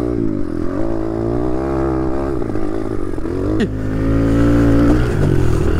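Single-cylinder dirt bike engine running under throttle, its revs rising, holding and falling, with a sudden dip and pick-up about three and a half seconds in.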